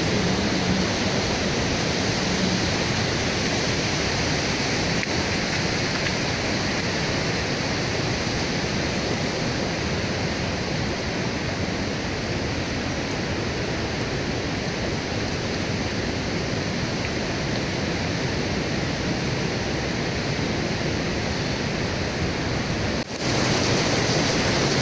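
Steady rush of mountain water pouring down, a waterfall near the trail, with a short break near the end.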